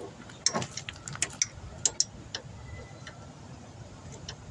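A socket wrench on long extension bars clicking and clinking irregularly as it is worked onto a bolt, about a dozen sharp metal clicks in the first two and a half seconds, then fainter.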